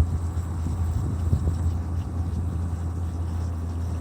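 A steady low engine hum, like a vehicle running nearby, with a faint knock about a second and a half in.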